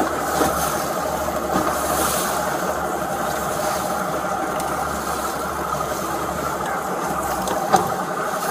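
Patrol boat's engine idling steadily as the boat comes alongside another boat, with a single short knock near the end.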